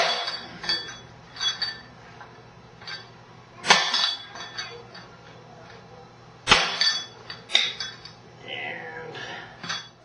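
Steel hammer striking a deep-frozen aluminium cargo door lever lock on a cardboard-covered concrete floor: a string of irregular, hard metallic blows, each with a short clinking ring, the three hardest about three seconds apart. This is a test of whether the cold makes the lock brittle. Near the end there is a scraping rustle as the lock is handled.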